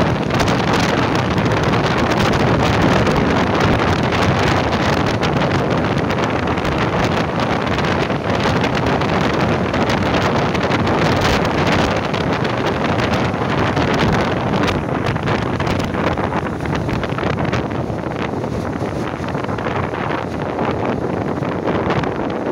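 Wind buffeting the microphone at an open carriage window of a moving passenger train, over the steady running noise of the train on the track. The noise eases somewhat over the last several seconds.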